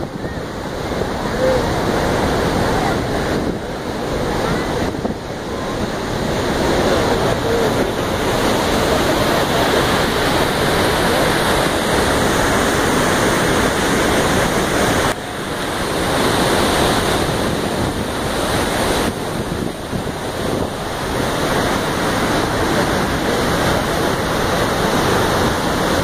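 Iguaçu Falls: a steady rush of heavy falling and churning water, with wind on the microphone. The sound drops briefly about 15 seconds in.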